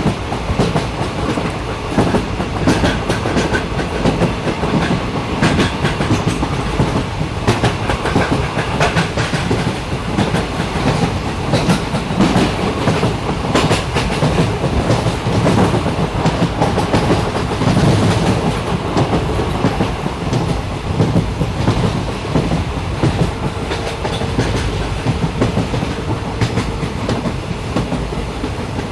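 Train running along the track: a steady rumble of wheels on rail, with irregular clicks and knocks as the wheels pass over rail joints. A faint steady tone sounds for a few seconds in the second half.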